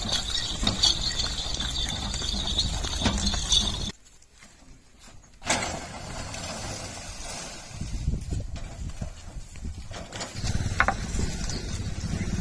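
Bullock cart on the move: hoofbeats and the rattle and rumble of the cart. About four seconds in the sound drops away almost to quiet for a second or so, then comes back.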